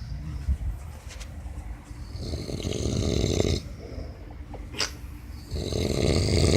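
Snoring: one long snore about two seconds in, a brief sharp sound near the middle, and the next snore building up near the end.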